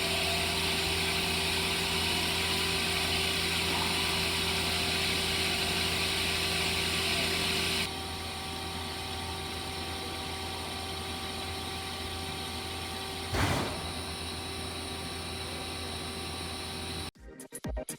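Yamazaki Mazak Quick Turn Nexus 250 CNC lathe running, a steady machine hum with a high hiss over it. About eight seconds in, the hiss drops away and leaves a lower steady hum, broken by a short burst of noise a few seconds later.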